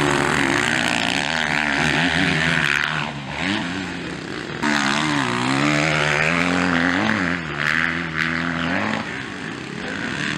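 Motocross bike engines revving hard and easing off through the corners, the pitch climbing and dropping with the throttle. The sound dips about three seconds in and comes back suddenly loud about four and a half seconds in.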